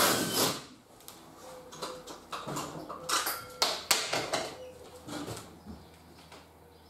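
A cordless drill running under load stops about half a second in. Scattered light clicks and knocks follow as the drill and fixings are handled between screws, the sharpest a few seconds in.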